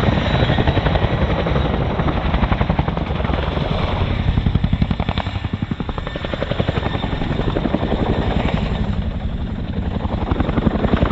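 Boeing Chinook tandem-rotor helicopter flying a display, its twin rotors beating in a rapid, continuous blade slap. The sound dips and swells twice as the helicopter manoeuvres.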